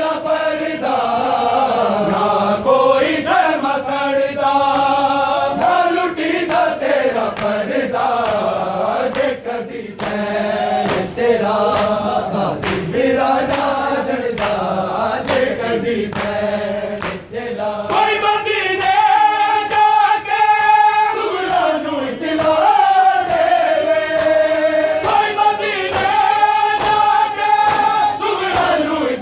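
A crowd of men chanting a Shia noha in unison after a lead reciter, with a steady beat of hand slaps on bare chests (matam) keeping time.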